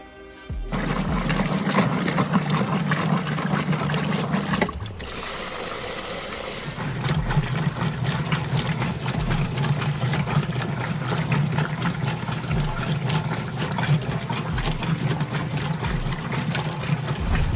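Kenmore direct-drive washing machine running, with a steady motor hum under the noise of moving water. The hum drops out for about two seconds about five seconds in, then starts again.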